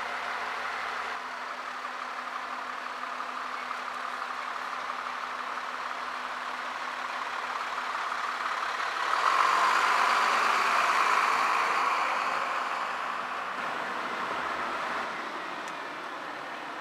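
Diesel engines of fire trucks running at idle, with a rescue truck driving past close by. The sound swells to its loudest about nine seconds in, then fades.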